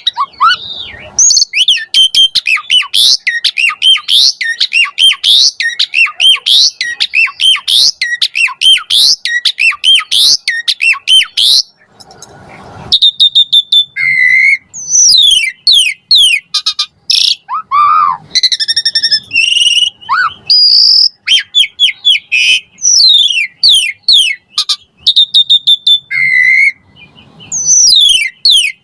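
Asian pied starling (jalak suren) singing loudly and without letup: a fast stream of varied whistles and chattering notes packed with mimicked calls of other birds, with a brief pause about twelve seconds in.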